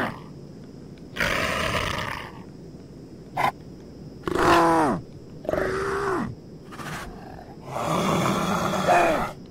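A big cat snarling and growling in four harsh bursts of about a second each, the pitch dropping within each burst, with a single sharp click a little after the midpoint.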